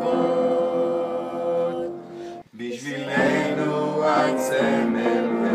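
A group singing a song in Hebrew, holding a long note that fades out about two seconds in; after a short near-silent break, the music comes back in with singing.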